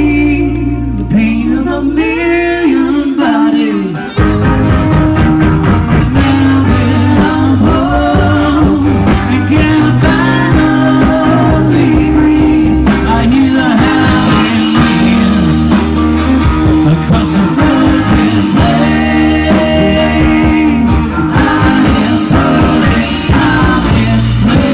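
Live rock band playing loud: singing over electric and acoustic guitars, bass and drums. The bass and drums drop out for about a second near the start, then the full band comes back in.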